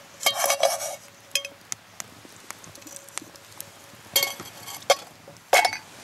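Metal cooking utensils clinking and scraping against camp cookware while stirring and handling food: a handful of short, irregularly spaced clinks and brief scrapes.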